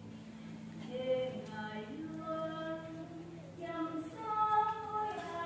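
Female voices singing a slow hymn in long held notes that step from pitch to pitch, over a steady low hum.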